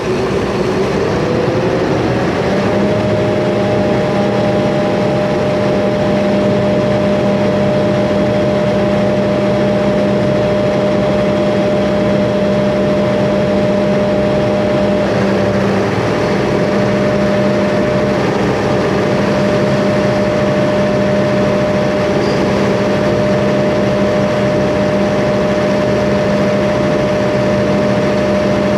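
Doosan-powered 500 kVA diesel generator set running under an automatic load test, the load being stepped up to 25% and then 50%. It makes a loud, steady machine hum; a higher tone in it rises in pitch over the first two seconds and then holds steady.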